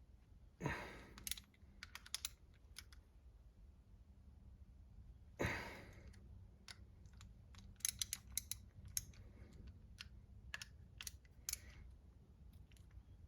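Small metal clicks and knocks of hand tools and parts as screws are snugged down on an RC car's transmission case, with two louder clunks about a second and five seconds in and a run of quick clicks near the end.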